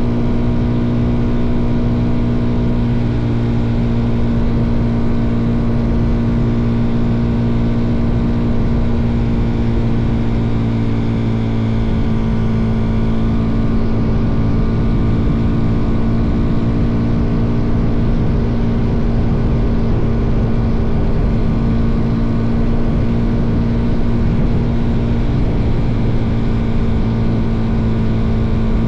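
Suzuki DR-Z400's single-cylinder four-stroke engine running at a steady cruising speed, holding one pitch, under a rough low rumble of wind and road noise.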